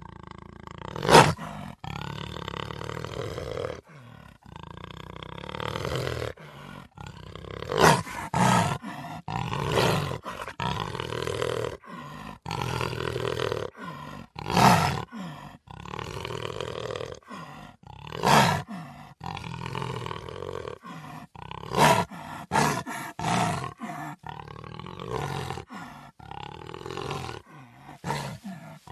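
Black jaguar roaring: a string of short, loud calls, the loudest about a second in, with longer, lower calls between them.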